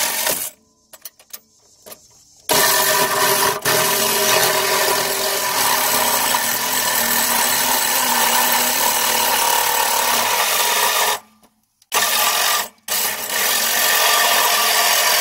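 Power drill with a hole saw running and cutting through oil-covered sheet metal. It is the steady whine and grind of a small hole saw used for the snorkel hole. The drill stops about half a second in for two seconds, stops again for a moment around eleven seconds and briefly near thirteen seconds, then runs on.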